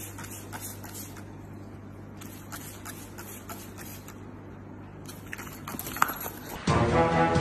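Trigger spray bottle squirting in short hisses, over a faint steady hum. About six seconds in there is a sharp snap as a dog lunges at the bottle, and shortly after, background music starts.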